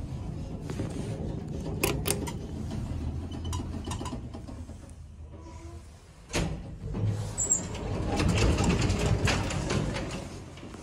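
A 1970 Express lift car travelling with a low rumble and a couple of sharp clicks, going quiet as it comes to a stop. About six seconds in there is a sharp clunk, then a louder mechanical rumble as the doors slide open.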